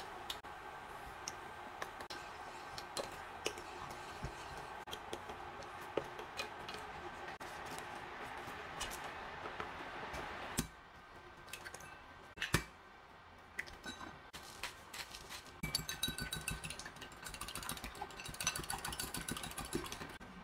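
A tonkatsu-sauce and apple-juice sauce bubbling in a small enamelled skillet, with a few clicks of a wooden spoon. About halfway it cuts off. After a few scattered clicks, eggs are beaten briskly in a glass measuring cup, a fast run of clinks.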